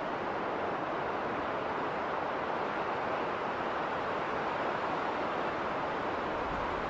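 Winter storm wind blowing steadily, an even rushing noise with no breaks or gusts standing out.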